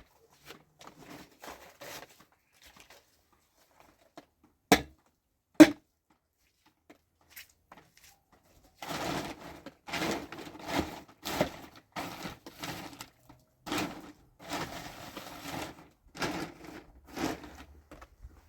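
Two sharp knocks about five seconds in, then a string of short bouts of crinkling, rustling handling noise in a small room.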